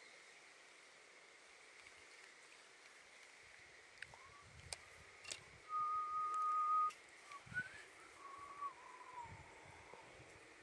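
A bird's whistled song. It starts with one long, steady, clear note held about a second, followed by a short rising note and a few lower wavering notes that fall away.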